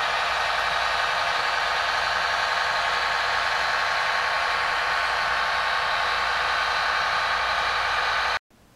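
Märklin HO-scale DB class 648.2 diesel railcar model running, its onboard sound decoder playing a steady diesel engine sound through a small speaker. The sound cuts off abruptly near the end.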